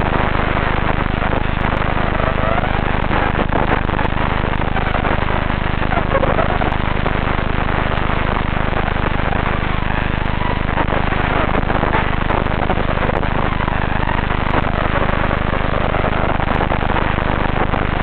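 FPV racing quadcopter's brushless motors whining, the pitch swooping up and down with the throttle. A steady hiss and low hum from the onboard camera's audio runs underneath.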